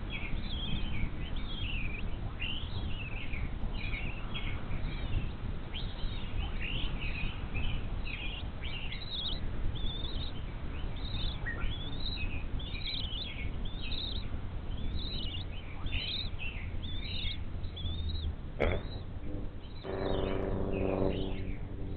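Birds chirping and singing throughout, many short phrases overlapping, over a steady low rumble. Near the end there is a single sharp knock, and a second later a steady low hum with several pitches lasting about two seconds.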